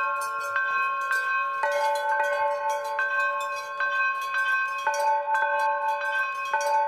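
Metal chimes ringing, struck again and again at irregular moments, a handful of fixed pitches sounding on together.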